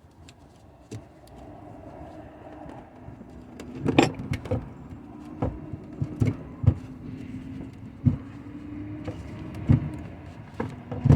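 Heavy car battery being worked loose and lifted out of its compartment: a string of irregular knocks and clunks as the battery case bumps against the tray and brackets, with scraping and shuffling between them.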